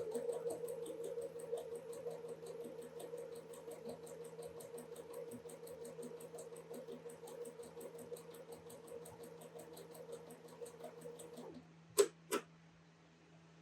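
Sewing machine stitching a seam: a steady motor hum with fast, even ticking of the needle strokes, stopping about eleven seconds in, followed by two sharp clicks.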